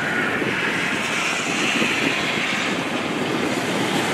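Highway traffic passing on a wet, snow-covered road: a steady hiss of tyres that swells as a vehicle goes by.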